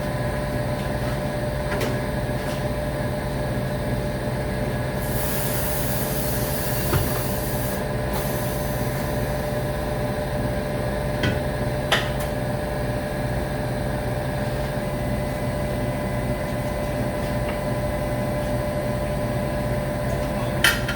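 Compressed air hissing for about five seconds, with a short break in the middle, over a steady machine hum. A few sharp metallic clicks come later.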